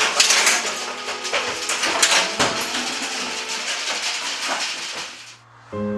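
Goats' hooves clattering and shuffling on a metal grated milking stand, a busy run of knocks and rattles. Near the end it cuts off and piano music comes in.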